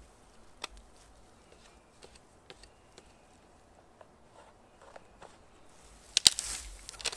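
Side branches being snapped off a thin spruce pole by hand: scattered faint twig cracks, then a loud cluster of sharp snaps about six seconds in, followed by the rustle of the needled boughs.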